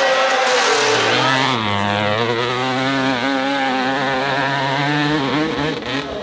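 Two-stroke dirt bike engine revving hard up a steep climb, its note dropping as it bogs under load, then wavering before it dies away near the end as the bike stalls and falls over.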